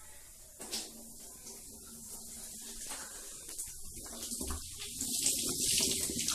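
Coke poured from a bottle into a bathtub: the stream splashes and fizzes on the tub floor, getting louder and more hissing toward the end.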